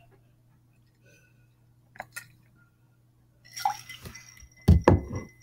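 A person drinking water from a glass: quiet sips and swallows, two small clicks about two seconds in, then breathy, noisier sounds and a pair of sharp knocks near the end.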